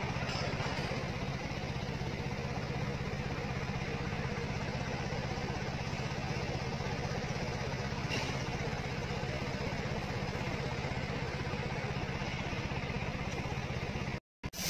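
Heavy truck's engine running steadily at idle. The sound drops out for a moment near the end.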